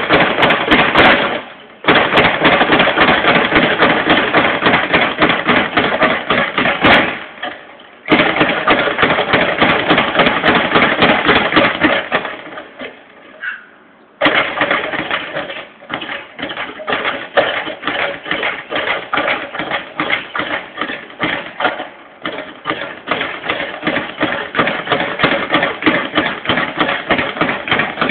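Speed bag being punched in a fast, steady rhythm, the bag rattling against its round rebound platform. The drumming stops briefly about two and seven seconds in and for a little longer near the middle, then starts again.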